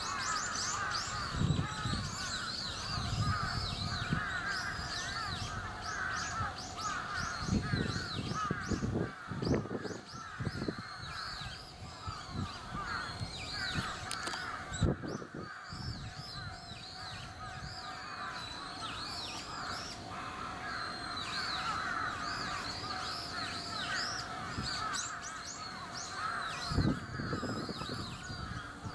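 A dense chorus of many birds calling over one another without pause, with a faint steady hum underneath and a few brief low rumbles.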